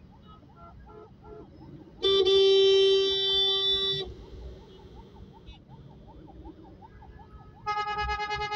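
A car horn sounds one steady blast of about two seconds, and a second horn starts near the end and keeps sounding. Beneath them a faint emergency-vehicle siren yelps, rising and falling about five times a second, over the low rumble of traffic.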